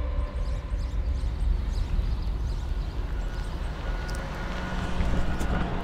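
Steady low rumble of a boatyard travel lift's engine running as the lift takes up its slings.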